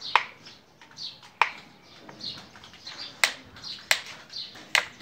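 Five sharp clicks at irregular intervals, over birds chirping repeatedly in the background.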